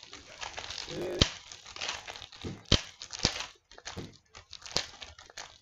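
A 2022 NRL Traders trading card pack wrapper crinkling as it is torn open and the cards are handled, with four sharp snaps spread through.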